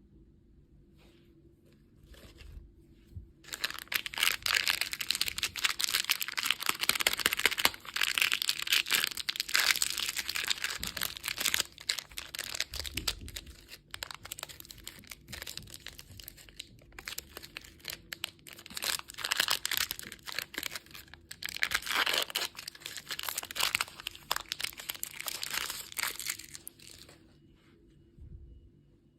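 Plastic candy packaging being torn open and crinkled by hand, a dense crackling rustle that starts about three seconds in and stops shortly before the end.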